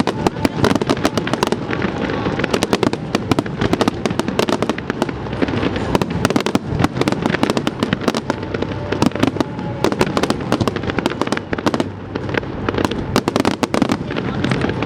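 Fireworks display going off in a dense, unbroken barrage of rapid bangs and crackling pops, with a brief lull about twelve seconds in.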